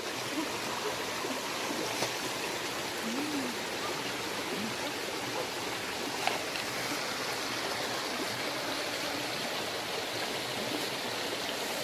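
A small rocky stream running steadily.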